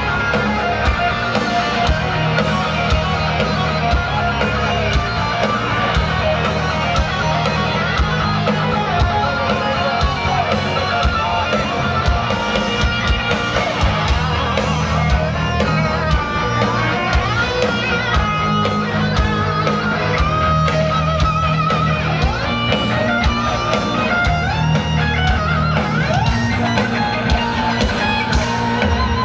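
Heavy metal band playing live and loud, with distorted electric guitars over bass and drums. A lead guitar plays a melodic line with bent, gliding notes.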